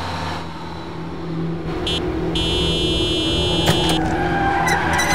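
Vehicle engine running with a horn giving a short beep and then a long blast about two seconds in; near the end, shrill squeals and sharp knocks begin.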